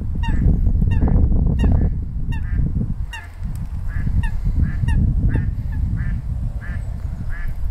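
Eurasian coots giving short, repeated calls, roughly one or two a second, over a steady low rumble.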